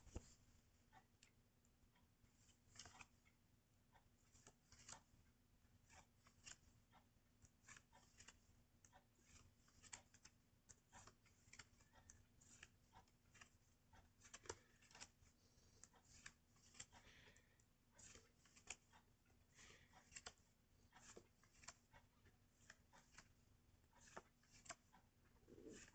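Small paper pocket timetable booklets handled and leafed through by hand: faint, irregular paper clicks and rustles, a couple a second.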